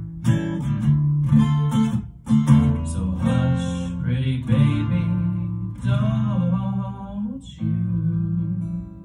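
Acoustic guitar strummed in a slow rhythm, playing the closing chords of the song; a final chord rings out and fades near the end.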